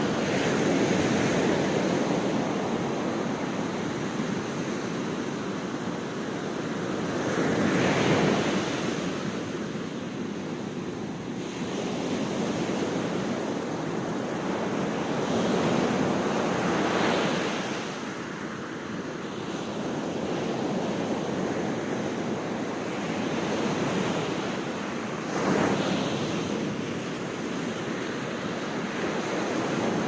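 Sea waves breaking and washing up a sandy beach: a continuous surf wash that swells into a louder crash about every eight or nine seconds.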